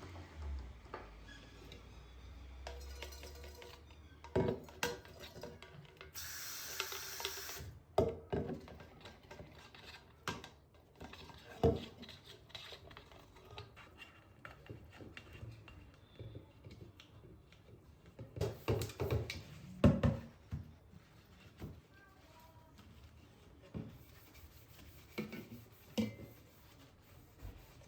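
Dishes and utensils being handled and set down: scattered clinks and knocks, with a short hiss about six seconds in.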